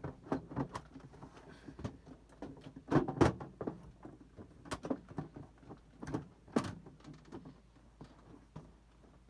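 Computer case side panel being fitted back onto the case: a series of scattered knocks and clatters of the panel against the chassis. The loudest come about three seconds in and again at about six and a half seconds.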